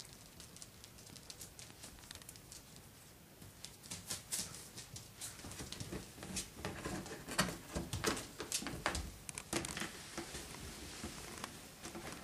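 Parson Russell Terrier puppy chewing and tugging at a cardboard box and paper packaging: quiet clicks at first, then a busy stretch of crinkling, rustling and tearing from about four seconds in to near the end.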